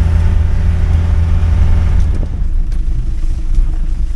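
A ute's engine running steadily with a low hum as it drives across the paddock, easing off about halfway through.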